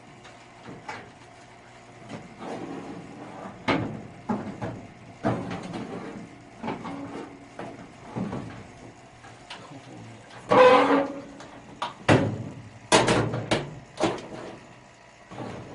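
Knocks, clanks and rattles of tools and sheet-metal furnace parts being handled during furnace servicing, with the loudest clatters about ten to fourteen seconds in.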